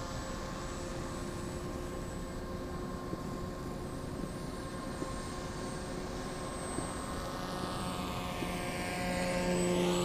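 Electric E-max CF2822 brushless motor and pusher propeller of a scratch-built R/C foam plane in flight, a steady buzzing drone that grows louder as the plane passes close near the end.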